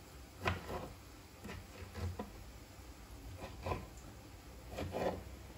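Kitchen knife slicing cherry tomatoes and knocking on a wooden cutting board: about six soft, irregular knocks.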